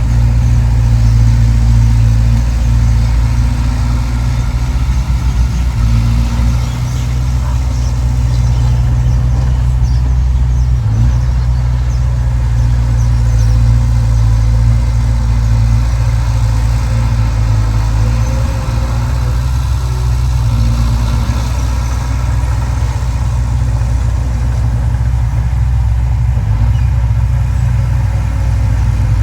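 Diesel engine of heavy earthmoving equipment running steadily: a loud, low drone at a nearly constant pitch.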